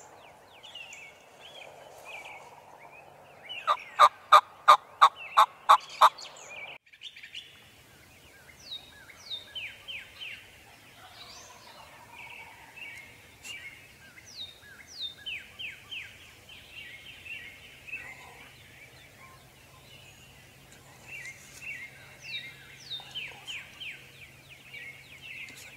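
A turkey yelping: a run of about eight loud, evenly spaced notes starting about four seconds in and lasting some two and a half seconds. Songbirds chatter and give repeated falling whistles throughout, over a faint low hum.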